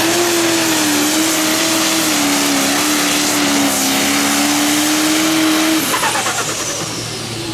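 Massey Ferguson light pro stock pulling tractor's turbocharged diesel engine running at full throttle under load as it drags the sled, its pitch wavering slightly. About six seconds in the engine note drops away and a high whine falls in pitch.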